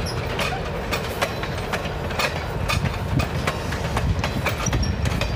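Vintage railway passenger coaches rolling past: a steady low rumble with the wheels clicking over the rail joints several times a second.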